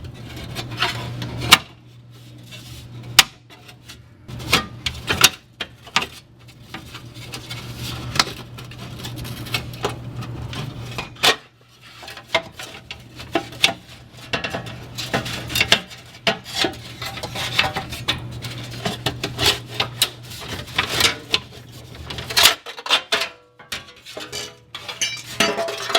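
Irregular clanking, knocking and scraping of a driveshaft tunnel shield being pried and tugged free from under a car, many sharp knocks at uneven intervals.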